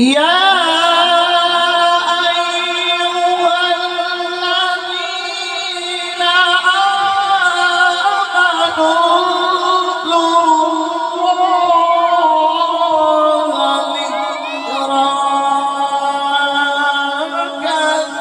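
A male qari chanting Quran recitation in one long, unbroken melodic phrase, ornamented with wavering turns, amplified through a microphone. The pitch steps down about two-thirds of the way through.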